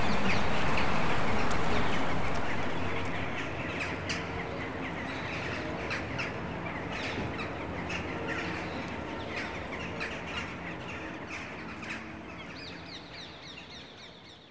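Birds chirping and calling over a steady background noise, with a louder rumble dying away in the first couple of seconds; the whole sound slowly fades out near the end.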